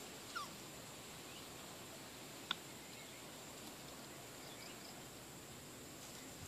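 Quiet outdoor background with a steady high-pitched insect drone, a few faint short chirps, and a single sharp click about two and a half seconds in.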